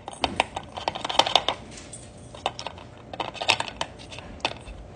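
Metal spoon scraping and tapping against a paper plate and a soft pretzel as a white spread is smeared on: a string of irregular clicks and short scrapes.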